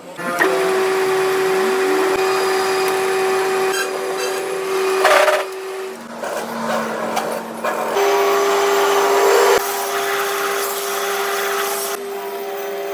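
A workshop power tool's motor running with a steady whine, cut short about six seconds in and starting again about two seconds later. There is a brief hiss-like burst about five seconds in.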